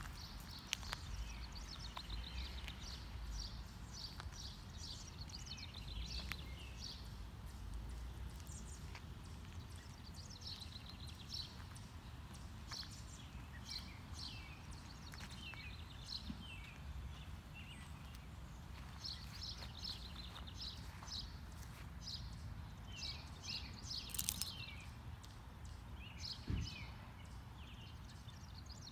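Small songbirds chirping and trilling on and off, in short repeated phrases, over a low steady rumble.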